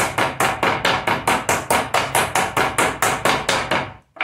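Wooden meat mallet pounding a thin slice of beef on a wooden cutting board to tenderise it, in quick even strokes about four a second that stop near the end.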